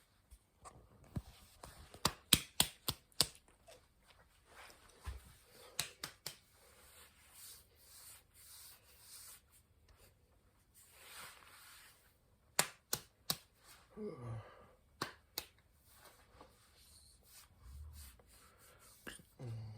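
A person drinking cola close to the microphone: runs of sharp swallowing clicks, about four a second, with faint rustling between them. About fourteen seconds in comes a short low sound falling in pitch.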